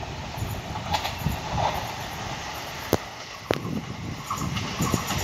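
Electric multiple-unit local train approaching: a steady low rumble of wheels on rail with a few sharp clacks, the two loudest about three seconds in and half a second apart.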